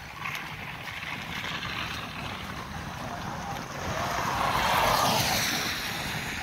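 Cars driving past on a wet road: steady tyre hiss and engine noise, swelling to its loudest as a car goes by about five seconds in.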